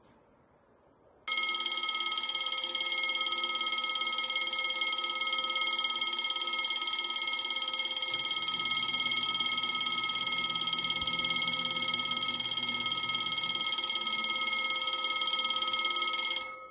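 French railway level crossing bell ringing continuously, an electronic ringing that starts abruptly about a second in and cuts off suddenly near the end: the crossing's warning that a train is approaching.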